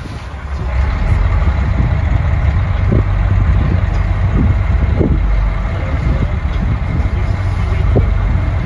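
A fishing boat's engine running under way: a steady low rumble that grows louder about a second in, mixed with wind buffeting the microphone, and a faint steady whine above it.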